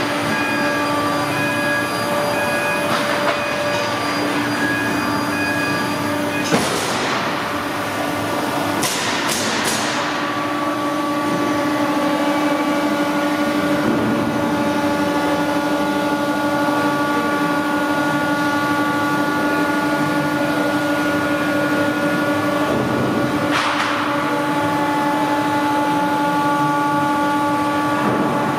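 Drives of a row of Weinmann tilting tables running as the tables lower, a steady mechanical whine made of several held tones. Short hisses break in about six seconds in, again around nine seconds, and once more near the end.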